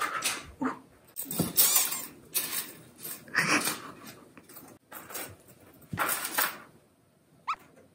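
A cat scrabbling with a feather wand toy on a wooden floor: irregular bursts of rattling and scraping as the toy's thin metal rod and line are dragged and knocked about. A brief rising squeak near the end.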